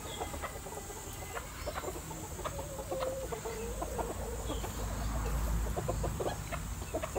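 A faint, drawn-out wavering animal call about two and a half seconds in, lasting a couple of seconds, over a quiet background with scattered light clicks.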